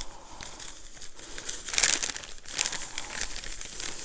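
Plastic bag of dry spice cake mix crinkling and rustling as it is shaken to sprinkle the mix out, in irregular bursts, the loudest about two seconds in.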